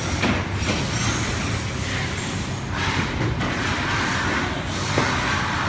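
Steady workshop machinery noise with a low hum, broken by a few short clicks.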